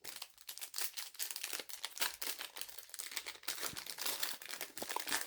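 Trading cards being handled and slid through the hands: a dense, irregular crinkly rustling.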